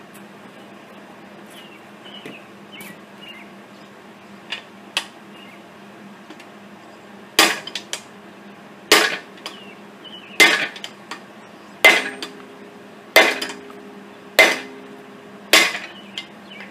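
Sledgehammer blows on a pole driving out a piston seized by rust and corrosion in a Ford 400 V8 block's cylinder. Two lighter knocks come first, then seven heavy metallic blows about every second and a half from about seven seconds in, with a ringing tone after some of the later ones.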